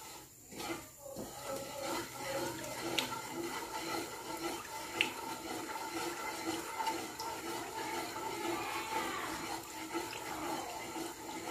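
Brown sugar syrup simmering and sloshing in a wok as a wooden spatula stirs it while the sugar caramelizes, with a couple of light clicks of the spatula against the pan.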